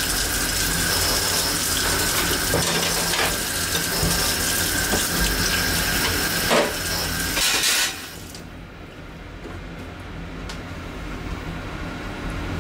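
Water running from a kitchen tap into a stainless-steel sink, with a few light knocks. The water stops abruptly about eight seconds in, leaving a quiet low hum.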